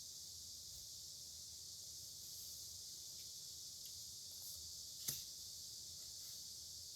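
Faint scratching of a dip pen's metal nib on paper over a steady hiss, with one sharp click about five seconds in.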